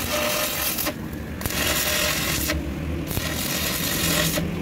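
Repeated harsh rasping strokes on the wheel hub's metal, each about a second long, roughly one every second and a half.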